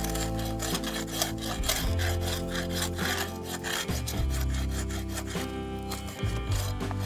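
Metal scraper rasping wax and propolis off the inner wall of a wooden beehive box in rapid, repeated strokes: the hive parts are being scraped clean to sanitise them after American foulbrood.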